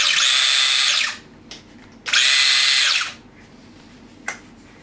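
Brushless 8750kv electric motor of a 1/24-scale LOSI Micro Rally RC car revving in two short bursts of about a second each, a high-pitched whine that glides up as it spins up and down as it spins down.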